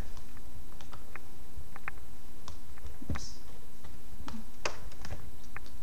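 Room tone: a steady low hum with scattered faint clicks and ticks at irregular intervals.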